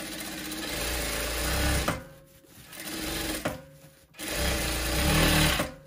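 Tysew industrial lockstitch sewing machine stitching a satiny fabric in three short runs, starting and stopping, with a short click as a run ends.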